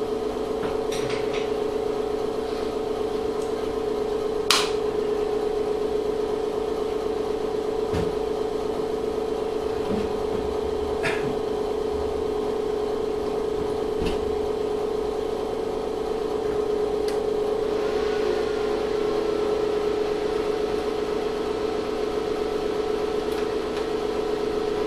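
Steady electrical machine hum from the running induction-heater bench equipment, with a few sharp clicks and knocks, the loudest about four and a half seconds in.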